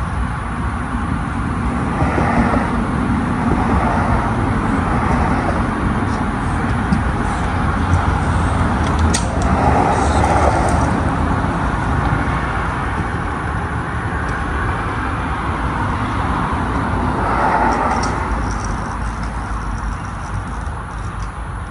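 Kick scooter's small hard wheels rolling over rough concrete, swelling louder each time it passes close by, with a few sharp clicks about nine seconds in.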